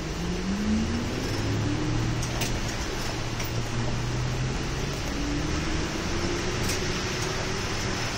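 City bus engine and drivetrain heard from inside the cabin as the bus drives on, the pitch rising twice as it gathers speed, over a steady hiss of tyres on the wet road.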